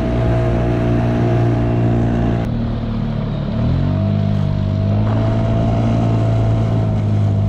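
Outboard motor of an inflatable skiff running under way, with a steady whine above the engine note. The engine note rises about three and a half seconds in as it is throttled up, then holds steady at the higher pitch.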